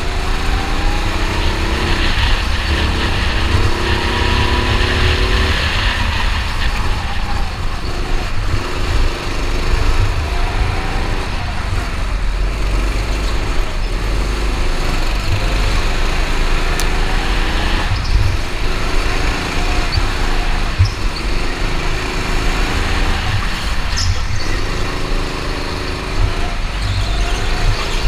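Onboard sound of a racing go-kart: its motor climbs in pitch down each straight and drops back for the corners, over and over every few seconds, over a heavy low rumble.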